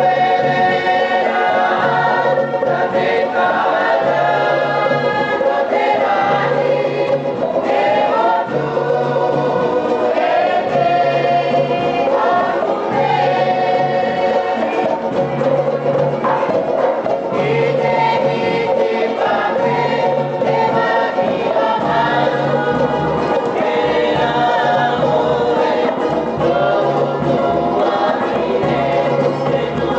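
Live group singing, many voices together, accompanied by strummed ukulele and drums keeping a steady low beat: music for a Pacific island dance.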